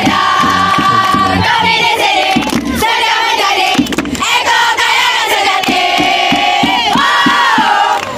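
Large crowd of students chanting a cheer in unison, holding long sung notes that change about every second, over a steady beat.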